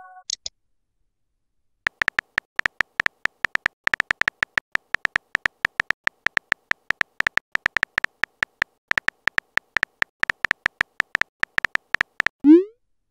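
Simulated keyboard tap sounds of a chat-story app as a message is typed out letter by letter: short, sharp ticks at an uneven rate of several a second, starting about two seconds in. Near the end comes a short rising swoosh, the app's message-sent sound.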